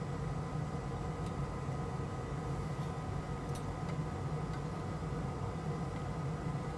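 A steady mechanical hum with a few faint, thin high tones, like bench equipment running, and a few light ticks.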